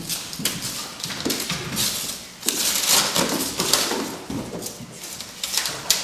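Brown paper backing being torn off the back of a wooden picture frame by hand, a run of uneven ripping and crackling strokes, loudest about halfway through.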